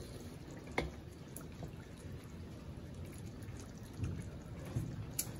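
Wooden spatula stirring a coconut-milk stew in a metal wok: wet sloshing of the liquid, with a sharp knock of the spatula against the pan about a second in.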